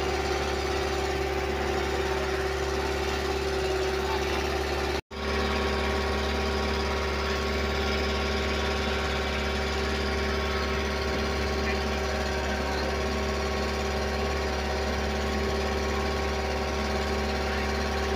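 Wooden boat's engine running steadily, a constant droning hum. The sound cuts out for an instant about five seconds in.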